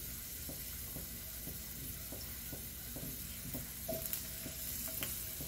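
Thin potato slices sizzling in a little hot oil in a stainless steel frying pan while more slices are laid in: a low, steady sizzle with a few small soft ticks.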